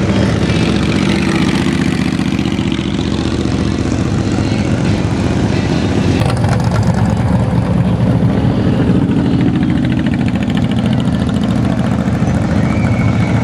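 Classic cars' engines cruising slowly past at low revs, a loud, steady, deep engine rumble.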